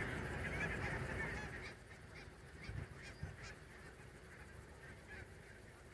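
A large flock of barnacle geese calling. A dense chorus of overlapping high calls for the first second and a half thins to scattered single calls.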